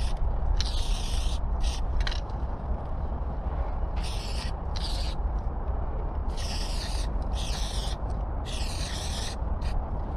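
Aerosol spray-paint can hissing in about nine short bursts, some brief and some close to a second long, as paint is sprayed onto the steel side of a freight car. A steady low wind rumble on the microphone lies under it.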